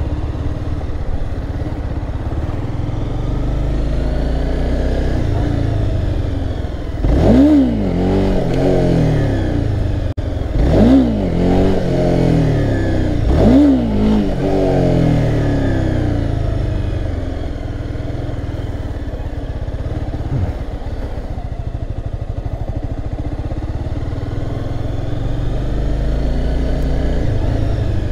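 Honda CBR300R's single-cylinder engine running as the bike is ridden. It is revved sharply three times a few seconds apart in the first half, each a quick rise and fall in pitch, in attempts to lift the front wheel into a wheelie.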